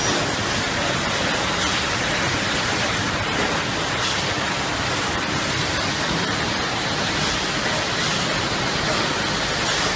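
Automatic case packaging machine running: a steady, even hiss of factory machine noise with no clear rhythm.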